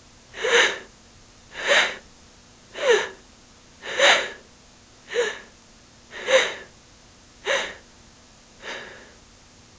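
A woman panting out of breath: eight heavy, slightly vocal breaths, about one every second and a quarter, the last one fainter.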